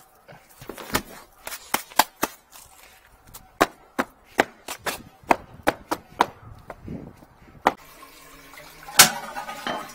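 Footsteps of work boots on concrete: a run of sharp, uneven knocks and scuffs. About nine seconds in comes a single loud clack as a plastic toilet seat is handled.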